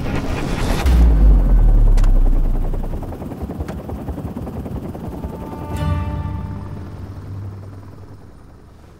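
Helicopter rotor chopping, with a deep low boom about a second in, then fading steadily away.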